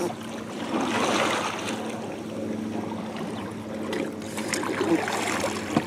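Double-bladed kayak paddle stroking through lake water, with water swishing and dripping off the blades, swelling with each stroke.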